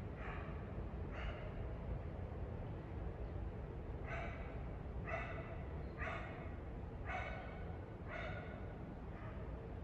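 Short animal calls repeated about once a second: two near the start, then a gap of about two seconds, then a run of six calls, the last one fainter. They sound over a steady low background noise.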